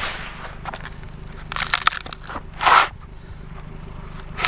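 Wooden skateboard deck being broken apart: irregular crunching and crackling cracks, with a cluster of sharp cracks about a second and a half in and a short rasping crunch near three seconds.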